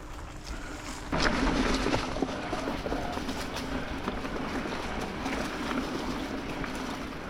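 Mountain bike rolling along dirt singletrack, with a steady rush of wind and rumble over the microphone that picks up about a second in.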